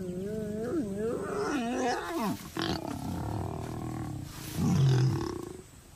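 Lions growling and snarling while mating: a long, wavering growl from the male, then a short, loud snarl about five seconds in, after which it goes quieter.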